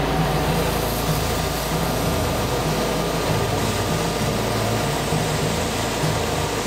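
AugerVac fan/auger grain vacuum running steadily: a dense rushing noise of air and shelled corn drawn through the flexible hose, over a low machine drone.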